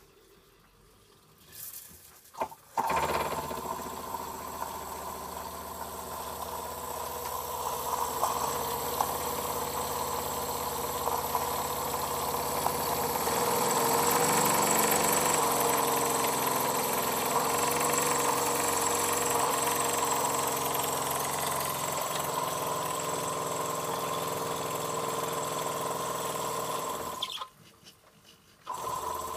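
Small brass steam engine of a model steam launch running steadily under radio control, driving the propeller. It starts about three seconds in, cuts out for about a second and a half near the end, and starts again.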